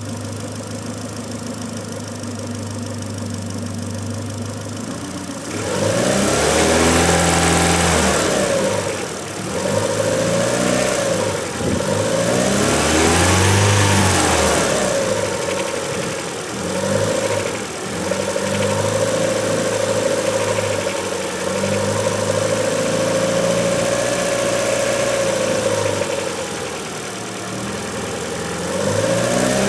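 Renault Mégane II RS 2.0 turbo four-cylinder engine idling steadily, then revved up and down repeatedly from about six seconds in. Under revs it makes an odd noise that the owner likens to worn engine bearings; at idle he hears no such noise.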